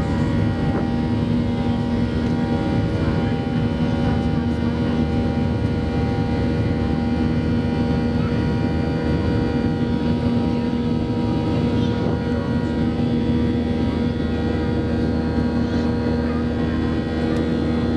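Boeing 737-800's CFM56-7B turbofan engines heard inside the cabin during the climb after takeoff: a steady drone with a strong low hum and several held whining tones over rushing air.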